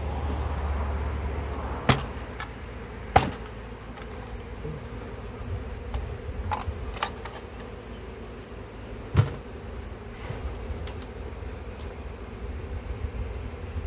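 A honeybee swarm buzzing around an open hive as it is being hived, with three sharp knocks about two, three and nine seconds in as the wooden hive boxes are handled.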